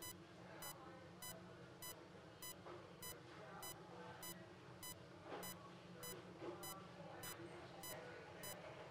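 Bedside patient monitor beeping in step with the patient's pulse: short, high beeps about every 0.6 s, roughly 100 a minute. Under them is faint rustling and clicking of the catheter and drapes being handled.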